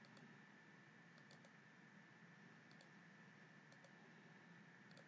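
Faint computer mouse clicks, about five quick double clicks spread over a few seconds, against near-silent room tone with a faint steady hum.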